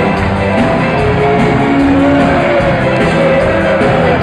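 A ska band playing live and loud with a steady beat, heard from among the audience in a large hall.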